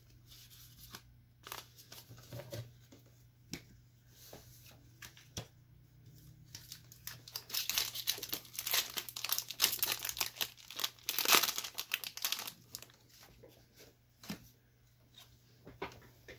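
Foil wrapper of a Pokémon card booster pack being torn open and crinkled in the hands, in a dense burst of crackling that peaks about two-thirds of the way through. Before it come scattered light clicks of trading cards being handled.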